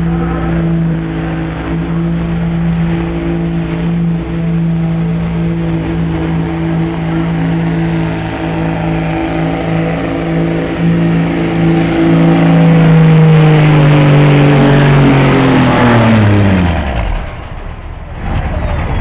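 2002 Dodge Ram pickup's 5.9-litre Cummins turbo-diesel held at high, steady revs under full load, pulling a weight-transfer sled. Near the end the revs fall sharply over about two seconds as the truck bogs to a stop and the pull ends.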